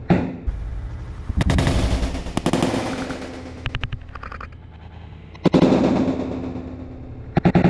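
Boxing gloves smacking focus mitts in quick runs of punches: sharp, rapid slaps, with the hardest hits about a second and a half in, at five and a half seconds and near the end.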